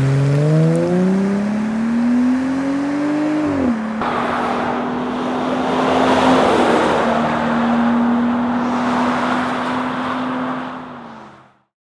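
Jeep Gladiator's V6 through a Magnaflow Street Series cat-back dual-tip exhaust, revving with a steadily rising pitch for about four seconds, then dropping back. It then switches abruptly to a steady engine note under a broad hiss, which fades out near the end.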